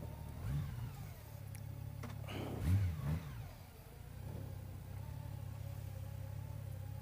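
Motorcycle engine idling steadily, blipped twice in short revs, about half a second in and again, louder, around three seconds in.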